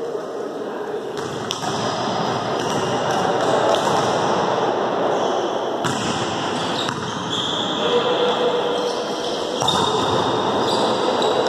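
Volleyball rally in a sports hall: the ball is struck and hit several times, sharp smacks over a steady bed of hall noise.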